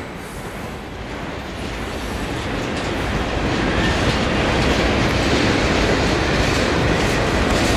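Freight train's boxcars and tank cars rolling past at close range: steady rumble and rattle of the wheels on the rails, growing louder over the first few seconds and then holding steady.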